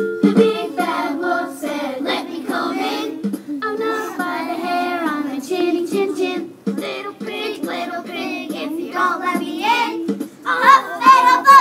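Young children singing a song together; the singing grows louder and higher near the end.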